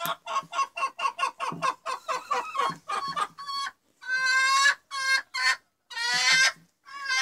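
Chicken cackling: a rapid run of short clucks, about four a second, then several longer, drawn-out squawking calls over the last three seconds.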